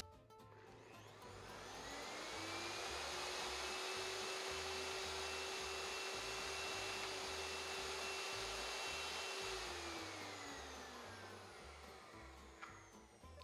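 Electric blender motor spinning up, running steadily for about six seconds, then winding down as it blends cottage cheese and Parmesan thinned with heavy cream.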